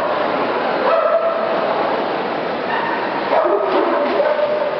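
Dogs whining and yipping, in drawn-out high calls about a second in and again for the last second or so, over the steady crowd noise of a busy dog-show hall.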